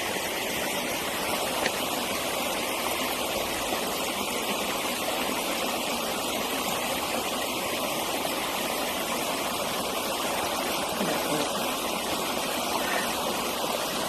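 Steady rush of creek water running strongly.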